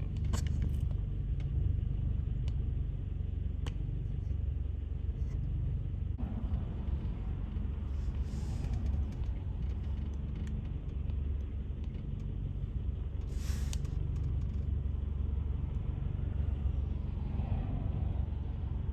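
A vehicle engine running with a steady low rumble, heard from inside the truck's cab. A brief rush of noise comes about two-thirds of the way through.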